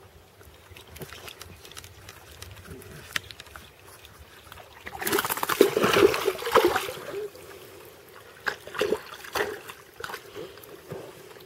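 A hooked pike thrashing at the water surface: a loud burst of splashing about five seconds in lasting about two seconds, then a few shorter splashes near the end.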